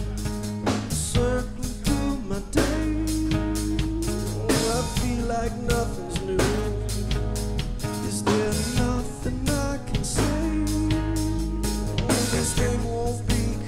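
Live rock band playing with a steady drum-kit beat, bass, organ and strummed acoustic and electric guitars. A male lead vocal sings over it.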